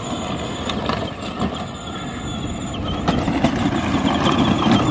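Peg Perego Gator ride-on toy driving on asphalt, its electric drive motors and plastic gearboxes whining while the hard plastic wheels roll over the pavement. It is running on a 24-volt drill battery. The sound grows louder about three seconds in.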